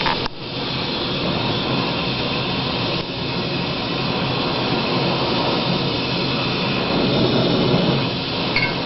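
Steady, loud mechanical rushing noise, with brief dips about a third of a second in and at about three seconds.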